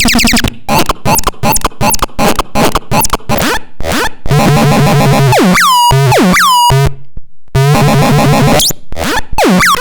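Electronic synthesizer sound effects: a fast run of short blips, each falling in pitch, then longer buzzy tones that end in downward 'pew' swoops. There is a brief pause about seven seconds in before the blips resume.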